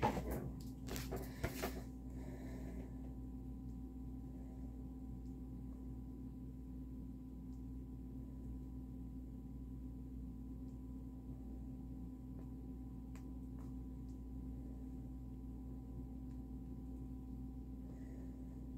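Steady room-tone hum of several unchanging tones, with a few soft handling clicks and a short paper rustle in the first two seconds and faint ticks now and then after.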